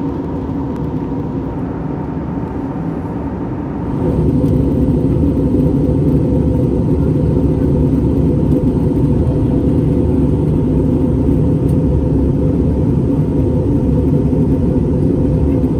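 Cabin noise of an Airbus A321neo in flight: a steady drone of engine and airflow noise with a constant hum underneath. It becomes abruptly louder about four seconds in, then holds steady.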